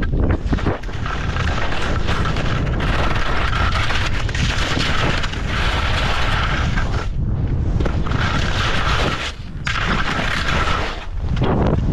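Skis scraping and chattering over hard, crusty snow at speed, under heavy wind rumble on a GoPro Hero10's microphone during a steep freeride descent. The noise drops out briefly about seven and nine and a half seconds in.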